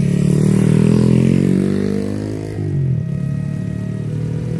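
Small motorcycle engine passing close by. Its pitch drops sharply about two and a half seconds in as it goes past, and other motorcycles keep running after it.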